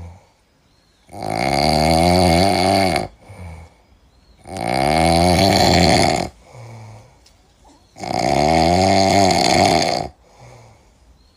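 A sleeping monkey snoring loudly: three long snores of about two seconds each, coming about every three and a half seconds, with a short, faint breath between them.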